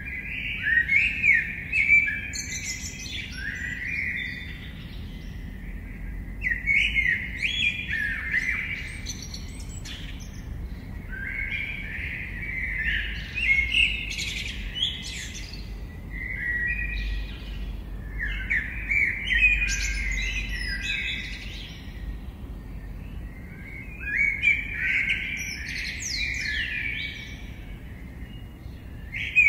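A songbird singing in repeated phrases of rapid, varied notes, each phrase lasting two to three seconds and coming about every five seconds, over a low steady rumble.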